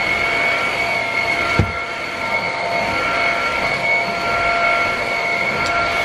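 Dreame XR cordless stick vacuum running steadily, a high whine over a rush of air, as its brush head is pushed across carpet. A brief dull bump about a second and a half in.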